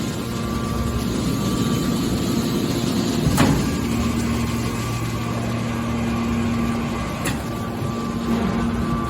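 Hydraulic scrap-metal baler running: a steady hum from the motor and hydraulic pump, with a sharp clank about three and a half seconds in and a lighter one a few seconds later.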